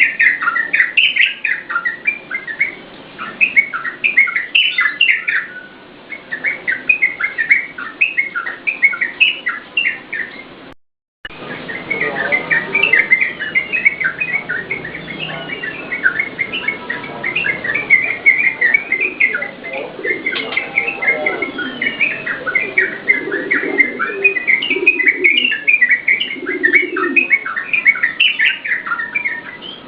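Yellow-vented bulbul singing continuous rapid phrases of short, sliding notes, cut off by a brief silent gap about a third of the way in. Lower notes sound beneath the song in the second half.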